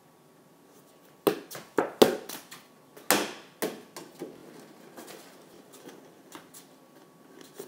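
A flat plastic soccer ball being kicked and bouncing on the floor: a string of irregular hollow knocks starting about a second in, the loudest in the first few seconds and softer ones after.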